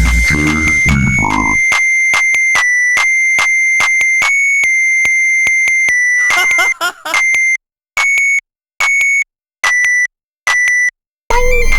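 Hardstyle breakdown built on a sampled emergency-alert data tone. The beat and bass cut out about a second and a half in, leaving a steady high, raspy buzzing tone alone, which then stutters in five short bursts with silences between them. The full track with its heavy bass kicks back in just before the end.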